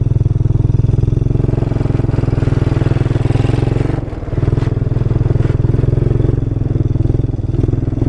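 Quad bike (ATV) engine running steadily under throttle while being ridden, easing off briefly about halfway through and again near the end.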